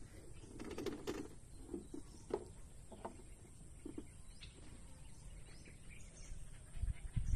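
Faint outdoor ambience with occasional short bird chirps and small knocks. A low rumbling noise on the microphone starts near the end.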